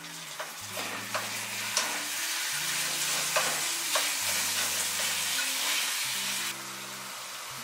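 Lamb and onions sizzling in a frying pan while being stirred, with a utensil clicking against the pan now and then. The sizzle drops off sharply about six and a half seconds in. Soft background music with slow low notes plays underneath.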